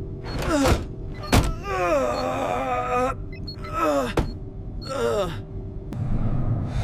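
A man's voice groaning and moaning in disgust several times, each cry sliding down in pitch. There is a sharp click about a second and a half in, and a low rumbling noise starts near the end.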